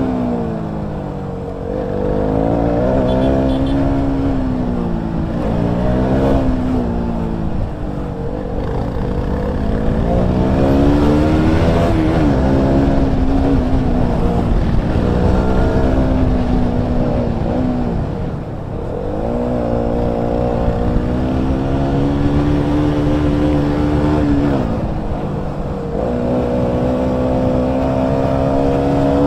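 KTM Duke 200 single-cylinder engine heard from the rider's seat, revving up and falling back over and over as the rider accelerates, changes gear and rolls off through the bends, over wind rush.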